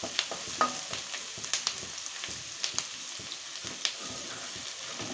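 Chopped onions, green chillies, ginger and garlic sizzling in hot oil in a black wok while a wooden spatula stirs them, with frequent short scrapes and taps of the spatula against the pan. The onions are frying to the translucent stage.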